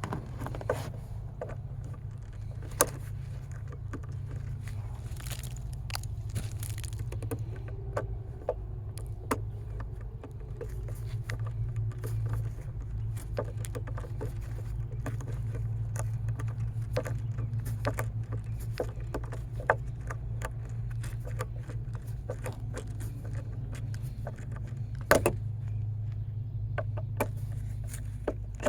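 Ratcheting screwdriver driving screws by hand: a run of irregular sharp clicks and scrapes over a steady low hum.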